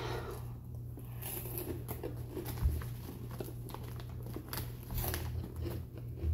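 A boy chewing a bite of a spicy snack, with scattered crackly crunching clicks and a low bump about two and a half seconds in.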